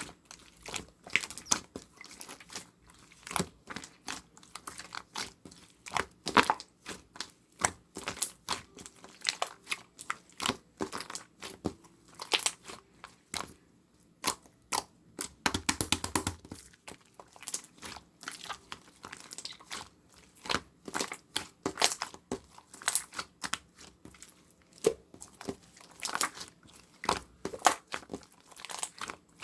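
Slime being squished, folded and stretched by hand, giving dense, irregular crackling clicks and small pops.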